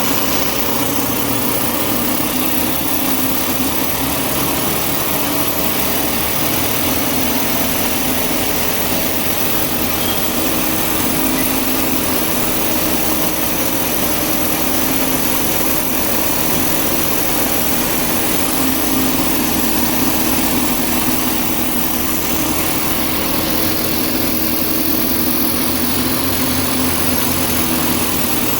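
High-speed slitting and rewinding machine for adhesive labels running steadily: a loud, even mechanical whir with a constant hum underneath.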